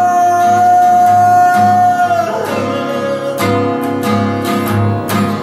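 A singer holds one long sung note over strummed acoustic guitar; the note ends a little over two seconds in and the strumming carries on with a steady bass pulse.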